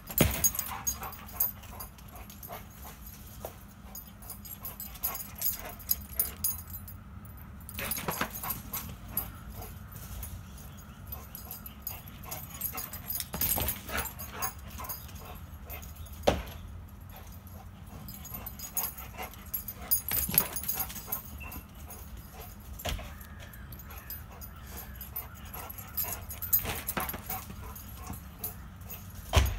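A dog whining and yipping in excitement as it chases a laser-pointer dot, with scattered sharp thuds and knocks every few seconds.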